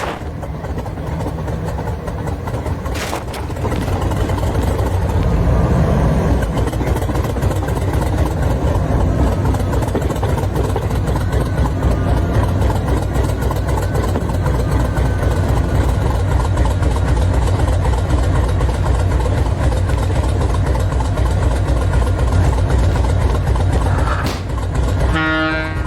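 Vehicle engine idling after a cold start, running steadily and getting louder about four seconds in. A short pitched sound comes near the end.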